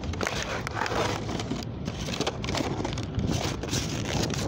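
Rustling, crackling rubbing noise from a handheld phone's microphone as the phone is jostled and swung about.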